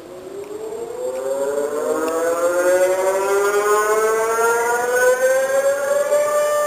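Civil defense siren winding up, sounding two close tones together. Its pitch rises steadily and it grows louder, settling into a steady wail near the end.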